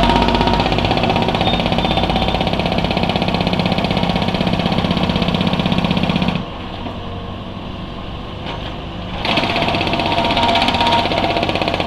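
Concrete breaker hammering rapidly into a road surface. It stops for about three seconds just past halfway, leaving a quieter engine running, then starts hammering again.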